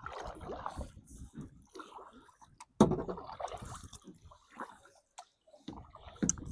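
Water sloshing and splashing against a kayak in irregular bursts, with a sharp knock about three seconds in.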